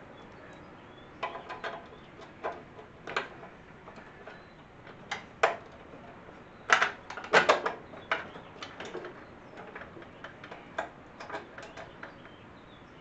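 Irregular metallic clicks and clinks of bolts and nuts being fitted by hand on a garden tractor's sheet-metal steering tower, with a few louder knocks about seven seconds in.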